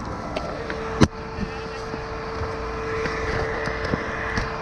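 Truck engine running steadily, with a steady whine that comes in shortly after the start, and one sharp knock about a second in.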